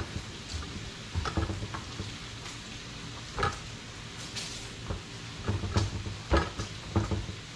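Bacon frying on a Blackstone flat-top griddle, a steady sizzle of hot grease, with several louder soft knocks and pats at irregular moments as a fish fillet is patted dry with a paper towel on a plastic cutting board.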